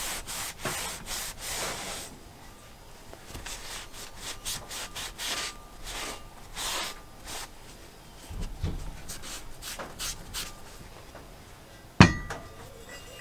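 Irregular hand-rubbing strokes of a pad and cloth on the steel slide bar of a bench vise. One sharp knock near the end as the heavy vise part is set down on its jaw.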